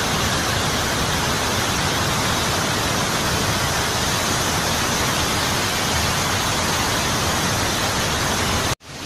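Waterfall pouring over rocks, a loud steady rush of water that cuts off suddenly near the end.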